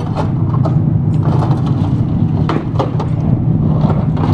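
Heavy diesel excavator engines running steadily at a scrap yard, with irregular clanks and knocks of scrap metal being handled.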